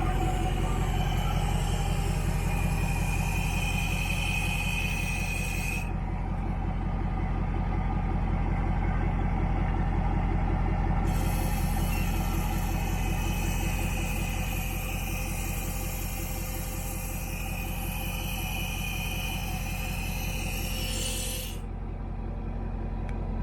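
A pressure washer's engine runs steadily. Over it a high hiss, likely spray, cuts off sharply about six seconds in, starts again about five seconds later, and cuts off again near the end.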